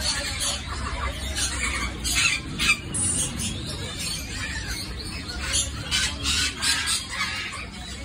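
Caged birds at market stalls chirping and squealing in scattered short, sharp high calls, with one whistled glide about three seconds in, over a steady low background rumble.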